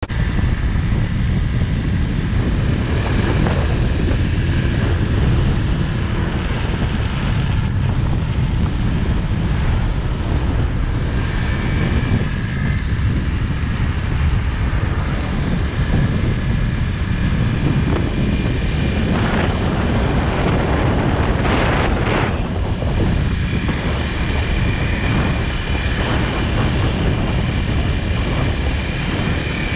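Motor scooter running along at cruising speed, its engine and road noise mixed with steady wind rumble on the microphone. A brief louder rush of noise comes about three-quarters of the way through.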